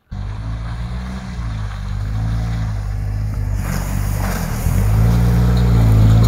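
ATV on oversized low-pressure tyres, its engine running under load through mud, the pitch rising and falling as the throttle is worked. It gets louder in the second half as the machine comes closer.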